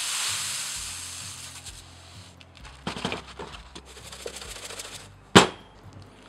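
Dry spice rub of salt and cracked pepper pouring through a paper funnel into a plastic shaker bottle, a granular hiss that fades over about two seconds. Light clicks and rattles follow as the shaker is handled, then one sharp knock about five seconds in.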